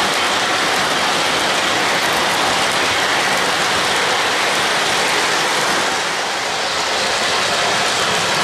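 O-gauge model passenger cars rolling past on three-rail track: a steady rushing rattle of metal wheels on the rails that eases slightly about six seconds in.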